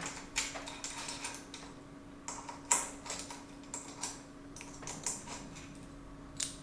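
Small irregular metallic clicks and ticks of a 4 mm Allen key and steel bolts being worked and handled while a bicycle stem's faceplate is unbolted, over a faint steady hum.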